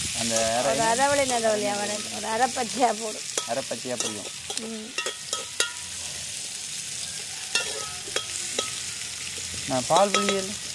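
Sliced onions sizzling in hot oil in an aluminium pot while a metal spoon stirs them, scraping and clicking against the pot. A wavering, voice-like sound is heard over it for the first few seconds and again near the end.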